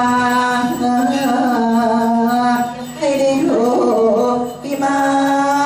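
A male tham khwan nak performer singing the ordination blessing into a microphone in long, drawn-out notes that bend and slide. The singing breaks briefly about three seconds in and again about four and a half seconds in.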